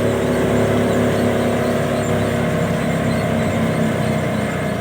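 Wheat thresher machine running steadily, an engine drone with a stack of steady tones under a noisy whir.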